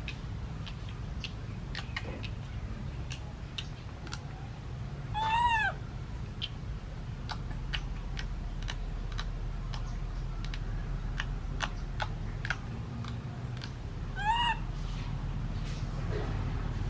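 Baby macaque giving two short, arched coo calls, each rising then falling in pitch, about nine seconds apart. Scattered faint sharp clicks and a steady low hum run underneath.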